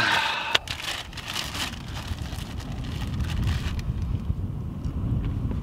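A plastic food bag crinkling, with a sharp click about half a second in, for the first second or two, then low wind rumble buffeting the microphone.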